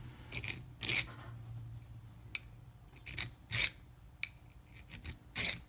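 Triangle file rasping across a padlock's steel shackle in three short strokes, with lighter scrapes between. The file barely bites, leaving only a little scratching: a sign that the shackle is hardened.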